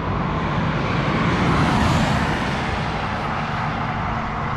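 A car driving past on a race-track straight: its noise swells to a peak about two seconds in, then fades as it moves away.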